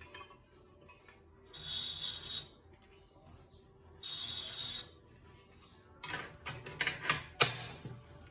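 Olivetti Lettera 32 portable manual typewriter being worked: two short rasping, ratcheting runs of under a second each, then a quick series of sharp clacks and clicks about six seconds in.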